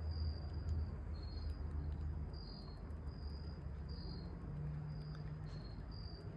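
Crickets chirping outdoors: short high chirps, about one and a half a second, at two slightly different pitches, over a faint low hum.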